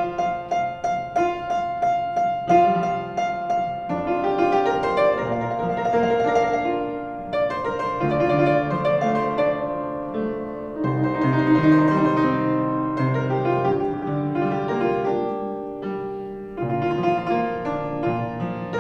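Upright piano playing a solo introduction to an enka song, opening with repeated struck chords and then running into a fuller melody with moving bass notes.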